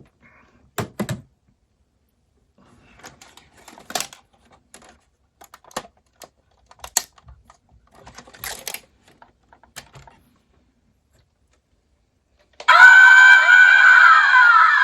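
Scattered plastic clicks from the remote control's switches and buttons, then near the end a loud electronic horn-like melody from the General Lee RC car starts up, its pitch sliding and then stepping through a tune.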